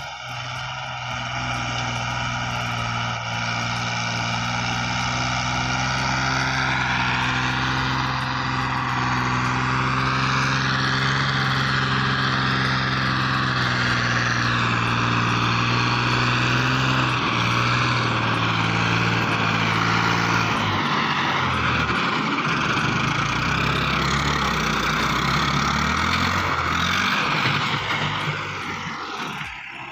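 Blue Ford tractor's diesel engine running under heavy load as it hauls an overloaded trailer. The engine gets louder about six seconds in, and its pitch wavers and shifts in the second half.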